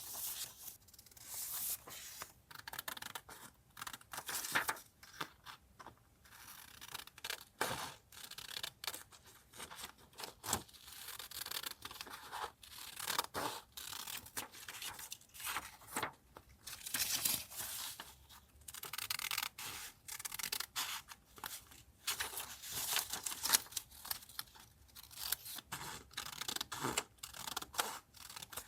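Paper handled by hand for a vintage junk-journal collage: irregular rustling, tearing and snipping, in short crisp bursts.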